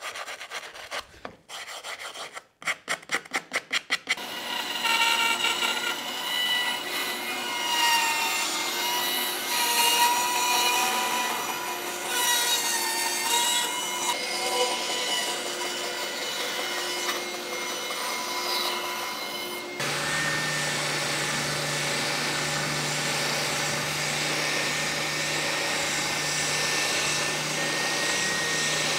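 A hand tool scrapes bark and loose material off the live edge of a spalted beech board in short, quick rubbing strokes. Then a bandsaw runs and cuts a curved end shape into the board, its pitch wavering with the cut. About twenty seconds in, the sound changes suddenly to the steady hum of a spindle sander running.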